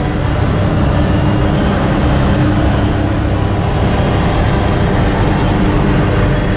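Small floatplane's engine and propeller droning steadily and loudly, with a constant hum and no change in pitch.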